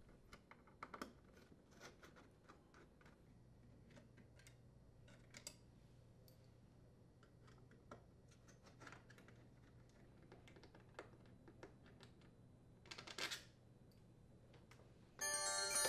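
Faint, scattered clicks and small metallic ticks of a T15 Torx bit turning out the screws that hold a dishwasher's inner and outer door panels together, with a brief louder clatter about thirteen seconds in. Shortly before the end a steady musical tone comes in.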